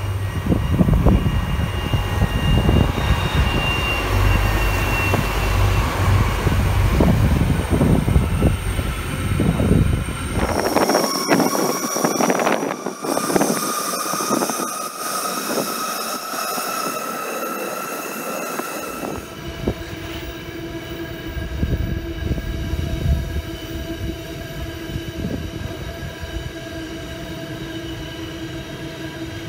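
Two DB class 218 diesel-hydraulic locomotives passing at the head of a long car-carrier train: their diesel engines rumble for the first ten seconds or so, then the wagons roll by with squealing wheels and steady ringing tones.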